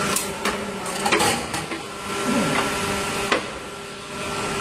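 Injection moulding machine cycling with a 6-cavity PET jar preform mold open: a steady machine hum with a run of sharp clunks and clicks, the loudest about a second in and another sharp knock near the end.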